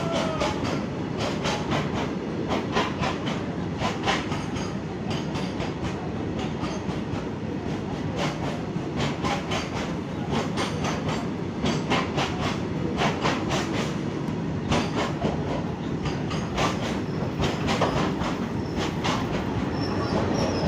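Indian Railways goods train's wagons rolling past: a steady rumble with repeated clacks of the wheels over the rail joints.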